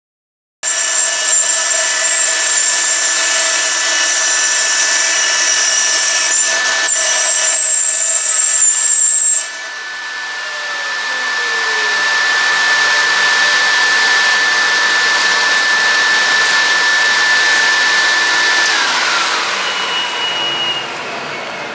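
Vertical CNC router (MechaPlus Pro Vario 3020 ZK) spindle and its dust extractor starting abruptly, running with a high whine over a loud rushing noise while the spindle routes a plywood panel. About halfway, the level drops and the highest tone stops; near the end, the whine slides down in pitch as the spindle winds down.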